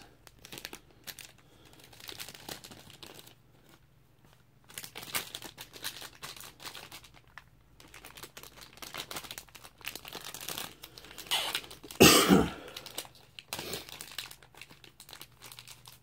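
Plastic packaging crinkling and tearing in irregular bursts as mail is unwrapped, with one louder burst about twelve seconds in.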